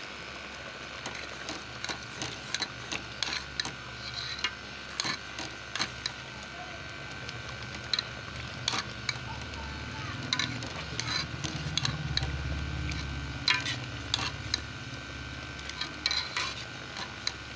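A metal spoon stirring boiling chopped tomatoes in an aluminium pot, with frequent irregular clicks and scrapes of the spoon against the pot.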